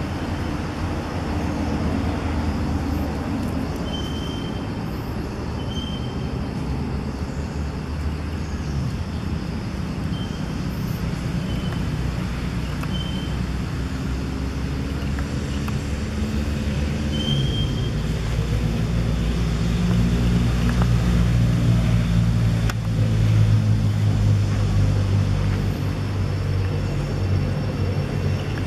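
A motor vehicle's engine runs low and steady nearby and grows louder about two-thirds of the way through. A few short high chirps sound over it.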